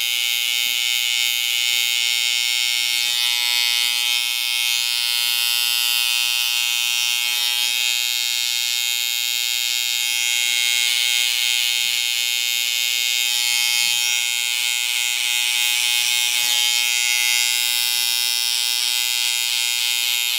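Electric hair trimmer (outliner) running with a steady high buzz as it lightly cuts a fade line into short hair.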